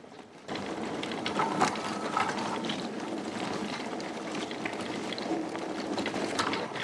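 Magicycle 52V fat-tire e-bike, with 26-inch wheels and 4-inch tyres, rolling over a rough, rutted dirt track. A dense mechanical rattle from the tyres and the bike's chain and frame starts suddenly about half a second in, with scattered sharp knocks.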